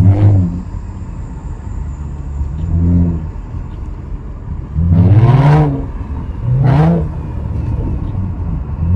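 Lexus V6 engine with a loud exhaust, revving up in short pulls while the car drives. The engine note climbs and drops back four times: briefly at the start, near three seconds, strongest around five seconds, and again near seven.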